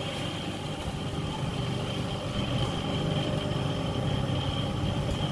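Freshly rewound rice mill electric motor on its test run, running freely with no load: a steady hum with a thin high whine over it, at high speed.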